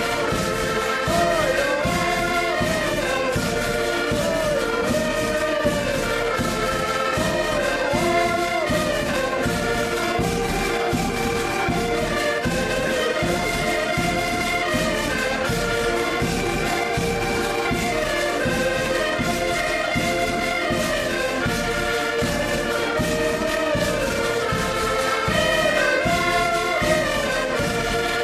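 Several accordions playing a lively Portuguese folk dance tune together, with a steady beat.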